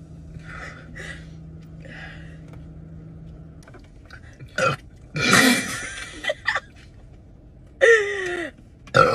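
A woman belching and retching, as she throws up. A few seconds of faint heavy breathing come first. A long, loud, rough heave follows about five seconds in, then a few short gulps and another loud heave with a falling pitch near the end.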